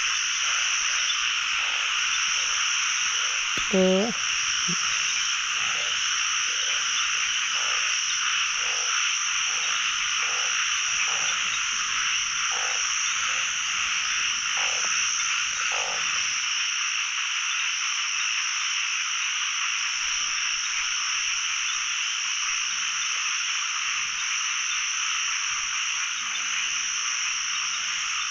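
Dense, steady night chorus of many frogs, including narrow-mouthed frogs, calling across a flooded pond. Low croaks repeat about once or twice a second through the first half and stop about sixteen seconds in. One louder, deeper croak comes about four seconds in.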